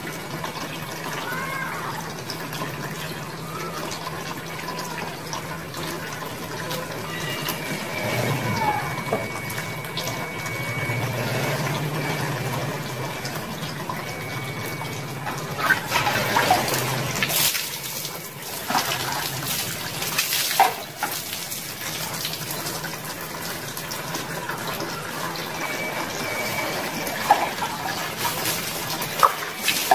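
Water pouring and splashing in a bucket bath, scooped with a plastic dipper from a basin, with a stretch of louder splashes about halfway through and a few sharp splashes near the end. A steady low hum runs underneath.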